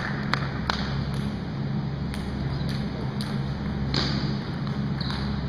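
Scattered light clicks of a table tennis ball bouncing and being tapped between points, a few about half a second apart and a sharper one about four seconds in, over a low steady hum.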